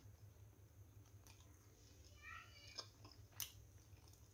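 Faint close-miked chewing of soft steamed momos, with a few sharp mouth clicks spread through.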